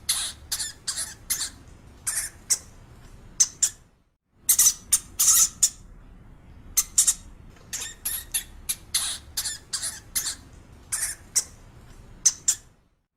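An animal giving short, sharp, high-pitched calls in irregular clusters of several a second, breaking off briefly about four seconds in.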